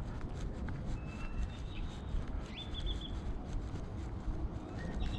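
Park ambience: a few thin, high bird calls, including a short whistle and a quick trill about two and a half seconds in, over a steady low outdoor rumble.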